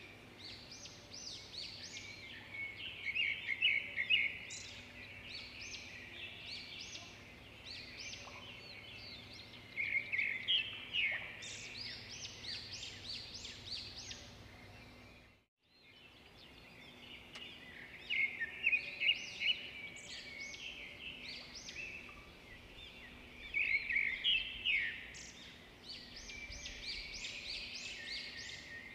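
Birds chirping: many short, high calls in bursts that rise and fall every few seconds, over faint outdoor hiss. The sound cuts out for a moment about halfway through.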